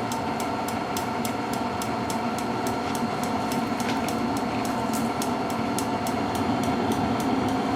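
Propane forced-air heater running with a steady fan-and-burner hum, its fan slowed by a dimmer, while the piezo igniter clicks continuously at about five clicks a second.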